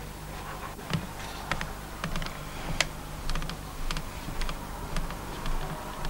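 Typing on a computer keyboard: irregular clicking keystrokes, a few a second, over a steady low hum.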